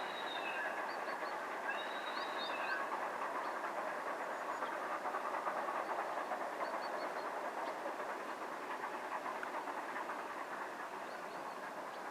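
Train hauled by a P36 steam locomotive rolling along the track: a steady rushing rumble of wheels on rails. There are faint high tones in the first few seconds.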